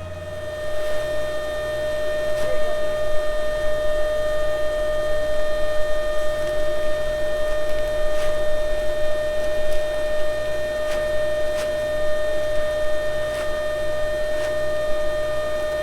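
Farm machinery running with a steady high whine, a low pulsing beat underneath, and a few sharp clicks. It starts up in the first second.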